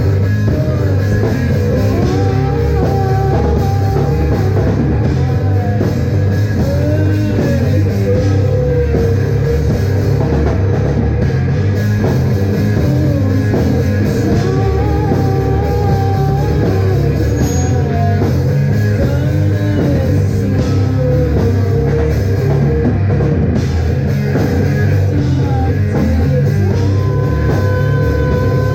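Live rock band playing an instrumental stretch of a song: electric guitar over a steady drum-kit beat, loud and continuous.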